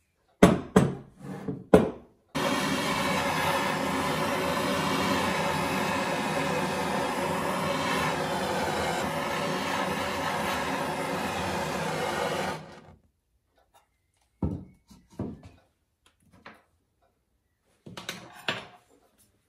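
A handheld gas blowtorch burning steadily for about ten seconds with a buzzing tone, heating a metal watch-case ring red-hot, then cutting off suddenly. Before it come a few sharp knocks at a bench vise, and near the end a few short scrapes of a hand tool on the ring.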